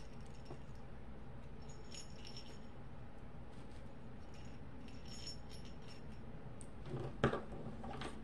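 Small metal jingle bell and metal split ring on a keychain jingling faintly as they are handled, with a couple of sharper metal clicks about seven seconds in.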